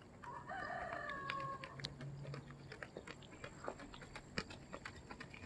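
Faint hoofbeats of a gaited horse moving over a dirt arena, a quick uneven run of short thuds, with a brief animal cry about half a second in that lasts around a second and a half.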